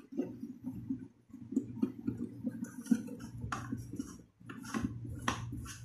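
Plastic toilet cistern being handled and turned over while flush parts are fitted: irregular light clicks and taps of hard plastic, with a louder knock near the end.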